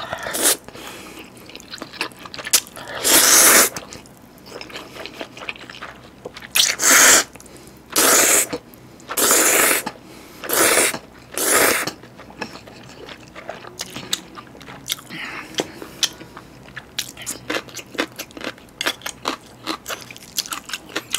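Close-miked slurping of a mouthful of chewy jjolmyeon noodles, with about six long, loud slurps in the first half. Then rapid wet chewing sounds, many short smacks, as the noodles and tteokgalbi are chewed.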